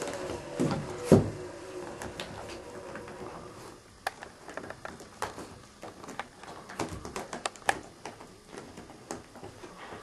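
A West Highland white terrier tussling with a vacuum cleaner hose: a loud knock about a second in, then scattered light clicks and taps for the rest.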